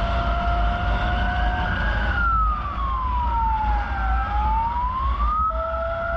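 Emergency vehicle siren wailing, its pitch sliding slowly down and back up once, with a second steady siren tone that drops out for a few seconds in the middle, over a steady low rumble of vehicle and road noise.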